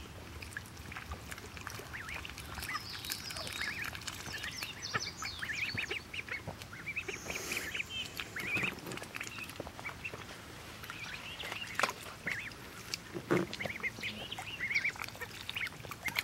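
Young ducklings peeping over and over in short, high calls that slide in pitch, with scattered soft clicks as they dabble their bills in muddy water.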